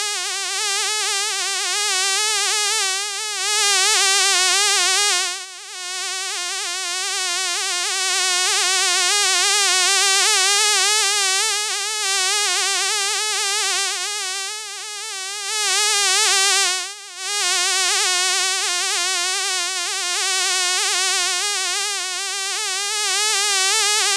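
A fly buzzing continuously, a fairly low steady buzz with a fast wavering pitch, fading briefly twice.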